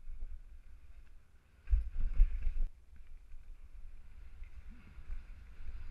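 All-mountain bike rolling fast down a gravel dirt trail, with steady wind rumble on the helmet-camera microphone. About two seconds in, a louder rattling clatter lasts about a second as the bike runs over rough ground.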